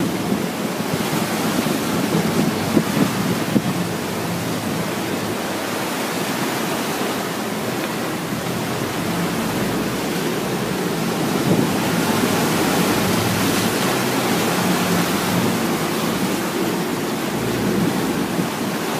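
Steady rush of wind and sea on an open fishing boat, with wind buffeting the microphone.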